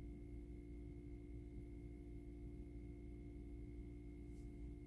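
Faint room tone: a steady low hum with a few unchanging pitched tones over it.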